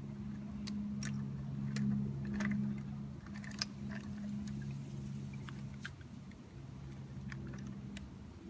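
Scattered small clicks and scrapes from a diecast model garbage truck being pushed by hand over dirt and its side-loader arm being worked, over a steady low hum.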